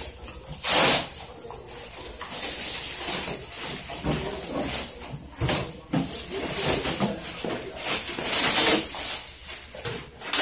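Blue plastic wrapping bag crinkling and rustling as it is tugged up and off a photocopier, in irregular swishes, the loudest about a second in.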